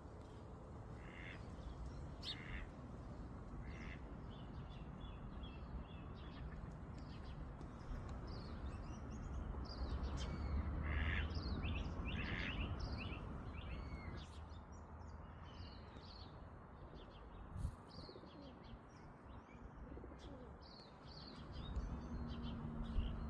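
Several wild birds chirping and calling in quick, overlapping phrases over a steady low rush of water. There is a single brief thump about two-thirds of the way through.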